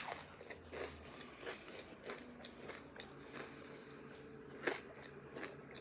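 A person chewing food, with faint irregular crunches and wet mouth clicks.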